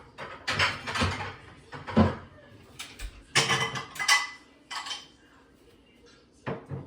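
Plates clattering as they are set into a dishwasher rack: a run of knocks and clinks, the loudest about two seconds in, then a quieter pause before one last clatter near the end.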